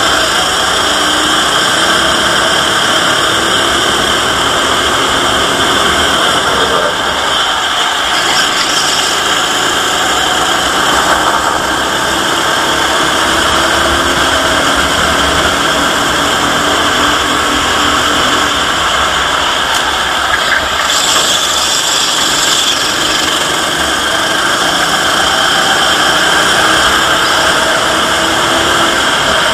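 Racing kart engine heard from onboard at speed, its pitch climbing slowly and dropping back again and again as the throttle is worked through the laps, under a loud steady rush of noise.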